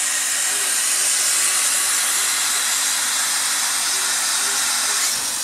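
Water spraying from the nozzle of a homemade pressure washer fed by an electric water pump, a loud steady hiss that cuts off suddenly at the very end.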